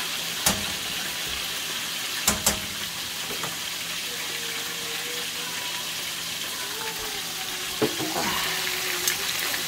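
Fish pieces frying in hot oil in a wok, a steady sizzle, with a few sharp metal clicks: one about half a second in, two close together around two and a half seconds, and two more near the end.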